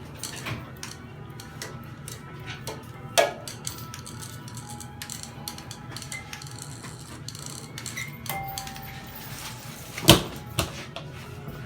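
Background music, with two sharp knocks, one about three seconds in and a louder one near the end.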